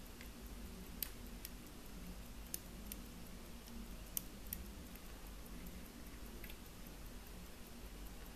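Faint, irregular small clicks and taps from fingers handling a gold pocket watch's case, about seven in all, the sharpest about one second and about four seconds in, over a low steady hum.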